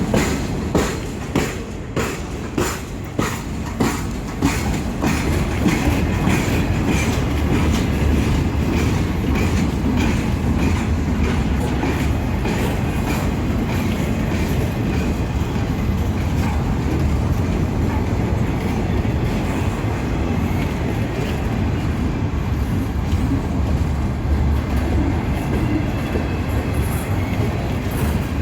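Freight cars of an empty train rolling past, their wheels clicking sharply and evenly over rail joints for the first few seconds, then settling into a steady rumble with a faint high ring of steel wheels on rail.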